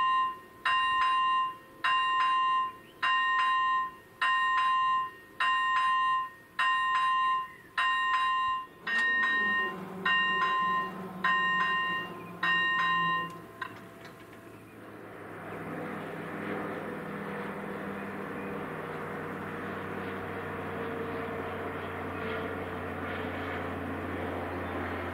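A level-crossing warning bell dings about once a second, a dozen or so strokes, and stops about thirteen seconds in. Then an approaching electric locomotive and its passenger train build to a steady rumble with a low hum and a faint whine.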